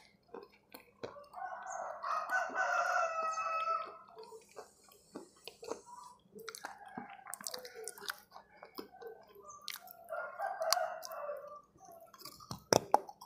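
A rooster crowing twice, a long crow about a second in and a shorter one about ten seconds in, over small wet mouth and chewing clicks. Near the end comes a bite with a few sharp crunches.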